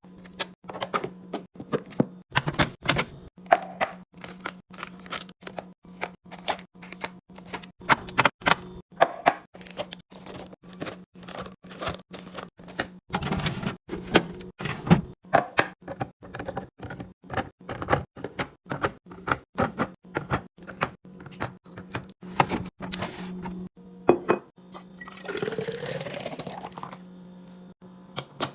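Hard plastic and glass food containers, jars and lids clacking and tapping as they are handled and set down, many quick knocks one after another, over a steady low hum. Near the end liquid pours into a container, its pitch rising as it fills.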